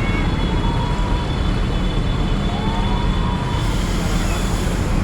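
Heavy diesel bus engines running with a steady low rumble and a faint high whine; a hiss rises about three and a half seconds in.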